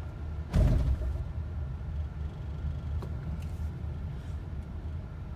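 2015 Honda Odyssey's six-speed automatic transmission banging once on the first-to-second upshift about half a second in, over the steady low rumble of the van moving off slowly. The harsh shift is a fault that the owner traces to the transmission's shift pressure switches.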